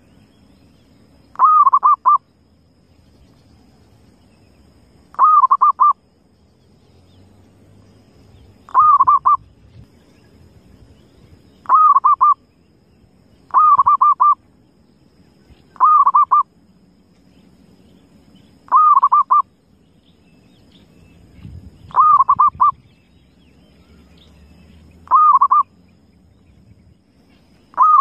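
Zebra dove (perkutut) cooing: a short call of a few quick notes, repeated about ten times, every two to four seconds.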